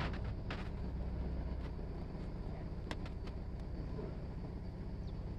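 A narrowboat's engine running steadily, a low even throb, with a few faint clicks over it.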